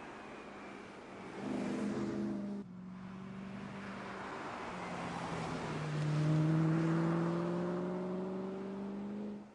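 BMW E92 M3's V8 engine pulling hard under acceleration. It cuts off sharply about two and a half seconds in, then builds again with its pitch climbing steadily through the second half before stopping abruptly.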